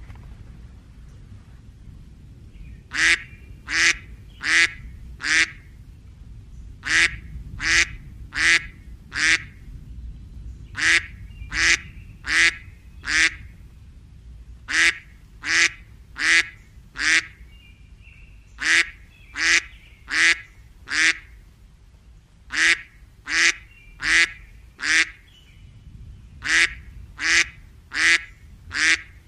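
A duck quacking in runs of four evenly spaced quacks. The runs repeat about every four seconds, starting about three seconds in.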